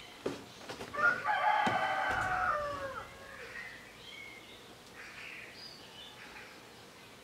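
A rooster crowing once: a long call of about two seconds, dropping in pitch as it ends. Small birds chirp faintly afterwards.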